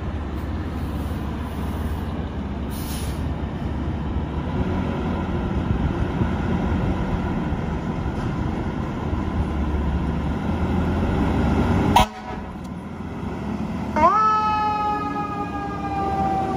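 A fire engine's diesel rumbles low and steady, then a sharp click is followed by a quieter stretch. About two seconds later the engine's air horns start with a blast and hold one loud chord of several tones, which sags slowly in pitch.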